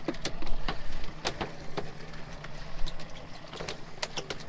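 Steady low hum of an offshore fishing boat running, with many irregular sharp clicks and knocks.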